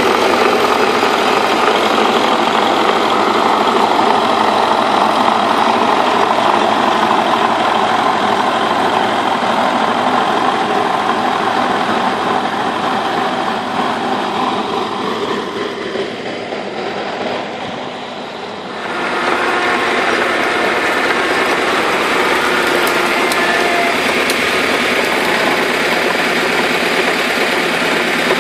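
Turbocharged T-40 tractor's air-cooled diesel engine running steadily while driving a PTO rotary tiller through damp, heavy soil, with the tiller rotor's churning mixed in. The sound drops for a few seconds past the middle, then comes back at full level.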